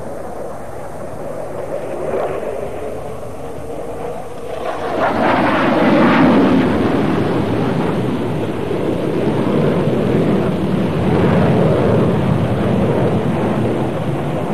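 McDonnell Douglas F-15 Eagle's twin Pratt & Whitney turbofan engines in a display flypast: a steady jet rumble that swells sharply about four and a half seconds in and stays loud, rising once more later on.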